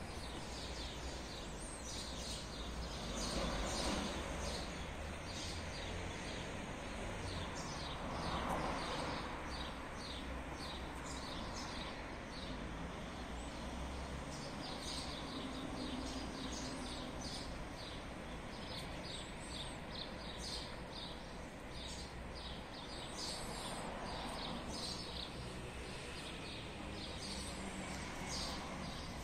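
Birds chirping in many short, high calls scattered throughout, over steady low outdoor background noise that swells a few times.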